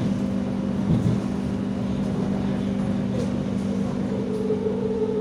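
Doha Metro electric train running, heard from inside the front carriage: a steady low hum, joined about three seconds in by a higher whine that grows louder near the end.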